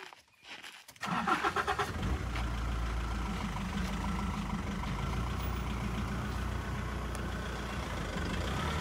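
Safari vehicle's engine cranking and catching about a second in, then idling steadily.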